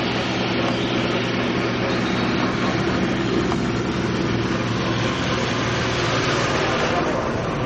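A boat's engine running steadily under way: an even low drone with a loud rushing hiss over it.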